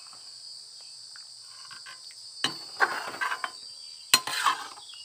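A steel ladle scraping and knocking against a metal kadhai as thick sponge-gourd curry is stirred, starting about two and a half seconds in, with several sharp clicks. A steady high-pitched insect chirring runs underneath.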